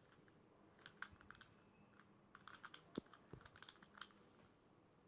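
Faint plastic clicking of a Rubik's Cube being handled and its layers turned: scattered clusters of small clicks, with one slightly louder knock about three seconds in.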